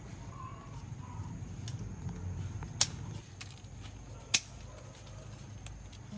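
Scissors snipping through leafy stems: two sharp snips about a second and a half apart, with a few fainter clicks around them.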